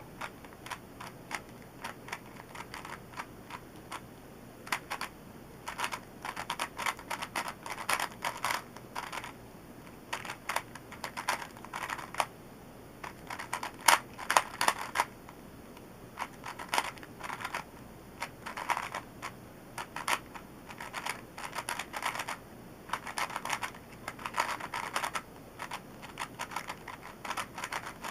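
A 3x3 puzzle cube being turned fast in a speedsolve: plastic layers clicking and clacking in quick irregular runs with short pauses between them.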